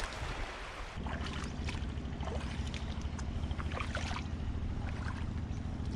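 Footsteps splashing and sloshing through ankle-deep water on a coral reef flat. A steady low motor hum starts about a second in and carries on under the splashes.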